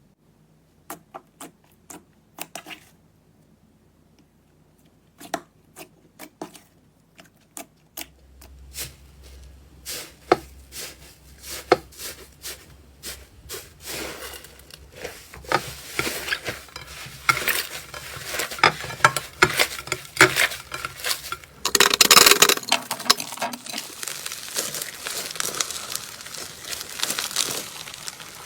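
Slime being handled, with sharp clicks and crackles. They start out scattered, then grow denser into continuous crinkling crackle, loudest in a dense burst about three-quarters of the way through.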